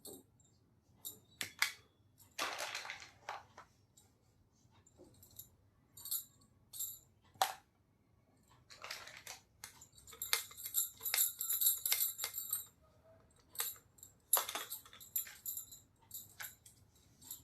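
Small plastic miniature toy pieces being handled: scattered light clicks and taps, a brief rustle of packaging about two and a half seconds in, and a couple of seconds of steady jingling rattle from about ten seconds in.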